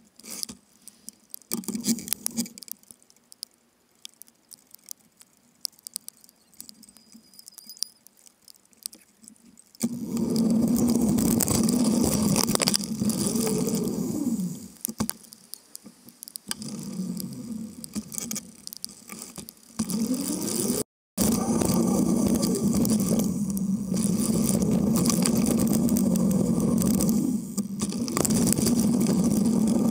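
Riding noise of a bicycle, heard through a camera mounted low on the bike: light clicks and rattles at first, then from about ten seconds in a loud, steady rumble of tyres and drivetrain at speed. The sound cuts out for a moment about two-thirds of the way through.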